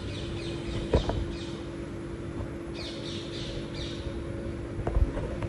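Birds chirping, a busy stream of short, high, downward-sliding calls, over a steady low hum. Two sharp knocks come about a second in and near the end.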